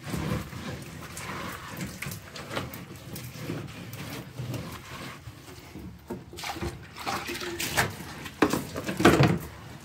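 Wet rag wiping down a wooden wall with water: irregular rubbing and swishing, with a few louder swishes in the second half, the loudest near the end.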